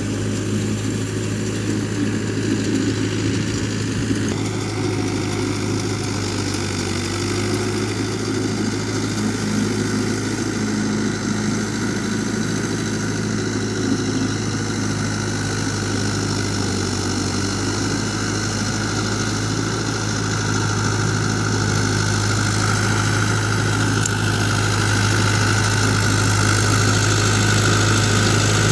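Diesel engine of a Mahindra Yuvo 575 4WD tractor running steadily under load as it works a rotary tiller through wet paddy mud, a constant low hum that grows louder over the last several seconds.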